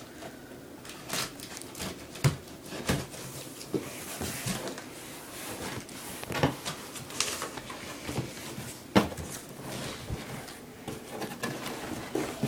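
Packaging of a boxed desktop computer being handled and unpacked: irregular rustling and scraping with scattered knocks and thumps, the sharpest about two seconds in and again near nine seconds.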